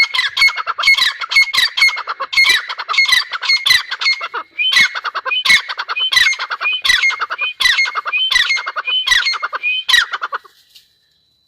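Grey francolin calling: a loud run of repeated rising notes at about two a second, with a brief break about four and a half seconds in, falling silent about a second before the end.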